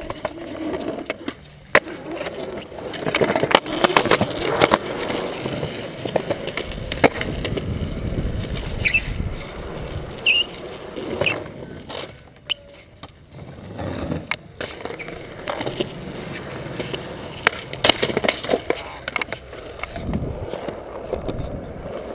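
Skateboard wheels rolling over smooth concrete, broken again and again by sharp clacks of the board striking the ground.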